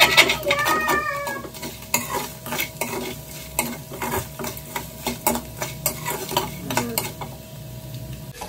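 Paneer cubes frying in hot oil in a pan, sizzling, while a spoon stirs them with many quick, irregular scrapes and clinks against the pan.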